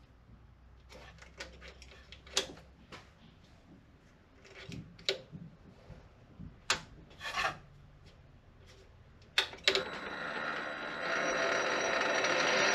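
Scattered clicks and knocks of hands working at a mini lathe, then two sharp clicks and the 8x16 mini lathe's motor starting up, running steadily with a high whine that grows louder over the last couple of seconds.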